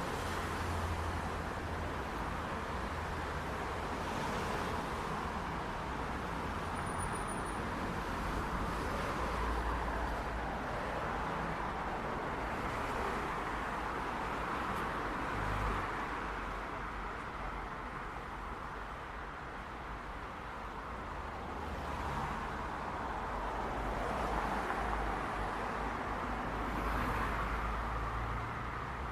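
City street traffic: a steady wash of tyre and engine noise that swells as vehicles pass every few seconds, over a low engine rumble.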